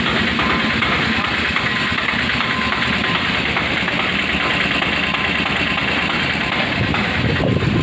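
Greaves 5 HP air-cooled single-cylinder diesel engine running steadily at idle, with a rapid even beat.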